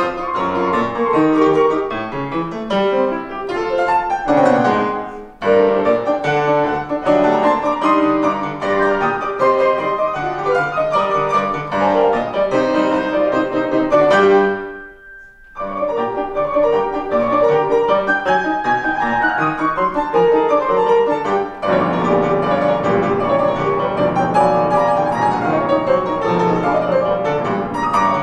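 Grand piano played four hands in a fast, dense passage, with a sudden break of about a second partway through before the playing resumes.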